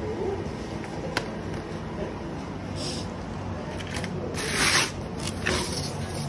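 Pedicure spa chair's massage mechanism running with a steady low motor hum. A sharp click comes about a second in, and a few short rustling scrapes follow in the second half, the loudest about three-quarters of the way through.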